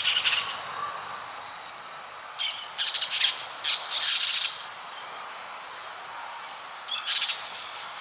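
Dusky-headed parakeets giving shrill, harsh calls in short bursts. There is one burst at the start, a cluster in the middle, and another near the end, over a steady background hiss.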